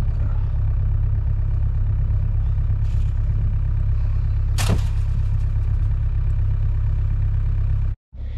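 Mini excavator engine running steadily at a low, even pitch, with a single sharp clank about halfway through. The sound cuts off abruptly near the end.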